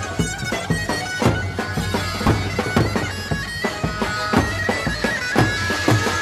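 Amplified halay dance music through loudspeakers: a reedy, bagpipe-like wind melody over regular drum beats.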